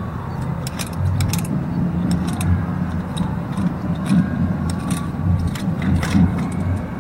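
Trials bicycle being ridden, with ratcheting and sharp clicks and knocks from the hub and frame scattered through. A steady low hum runs underneath.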